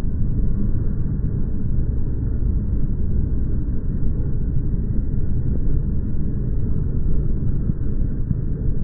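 Outdoor ambient sound from a phone recording, slowed to a tenth of its real speed: a loud, steady, deep rumble with nothing high-pitched in it.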